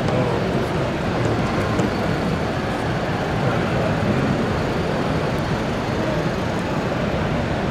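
Steady background hubbub of a crowded exhibition hall: many distant voices blending into constant chatter, with no single sound standing out.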